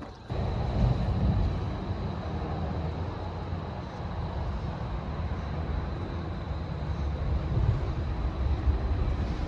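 Steady rumble of traffic on the I-40 interstate overhead, heavy in the low end, starting abruptly just after the start.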